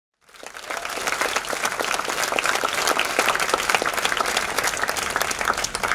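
Audience applauding, fading in over the first second.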